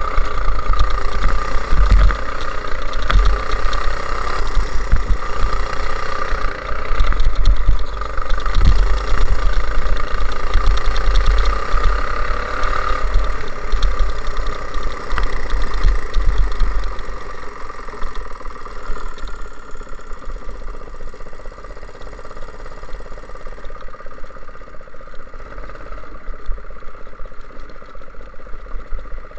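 Go-kart engine running hard under load, heard from on board, with wind buffeting the microphone. About halfway through the engine eases off and the sound grows noticeably quieter.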